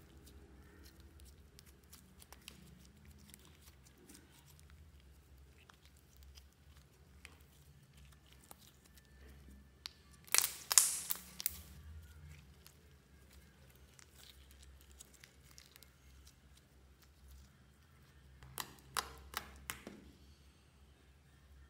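Pink makeup-mixed slime squished and stretched by hand, mostly faint sticky clicks, with two louder spells of crackling pops from the slime, about ten seconds in and again near the end.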